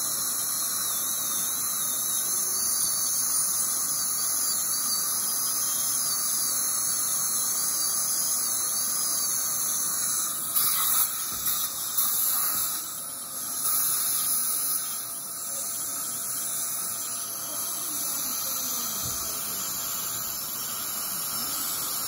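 High-speed dental drill whining with a wavering pitch as it grinds down a molar for a crown, over the steady hiss of suction. The whine stops a little under halfway through, followed by a few short loud bursts of hiss and then steady suction hiss.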